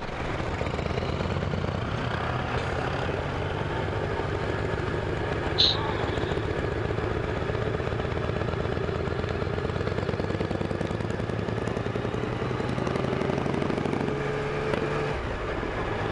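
Yamaha Tracer motorcycle engine running steadily while riding, with wind noise on the handlebar-mounted camera's microphone. There is a short high-pitched chirp about five and a half seconds in, and the engine note shifts near the end.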